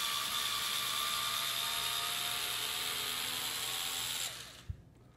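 Cordless drill/driver running steadily as it backs out a receptacle mounting screw, with a faint rising whine; it stops about four seconds in, followed by a short knock.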